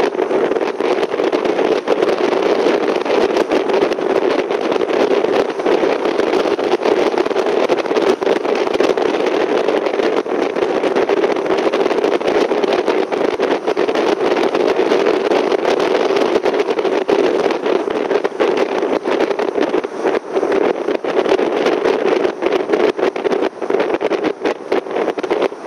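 Steady driving noise of a car on a country road, engine and tyres on tarmac, with a constant rough flutter.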